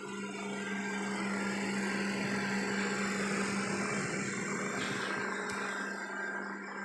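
Robot vacuum cleaner running: a steady motor hum with brush and suction noise that grows louder through the middle and fades slightly near the end.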